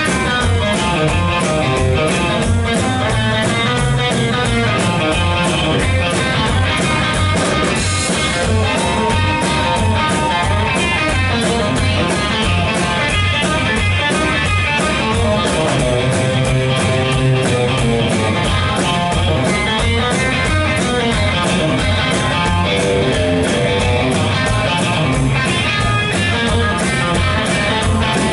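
Live rockabilly band playing an instrumental stretch: a hollow-body electric guitar plays lead over a steady drum-kit beat, with no singing.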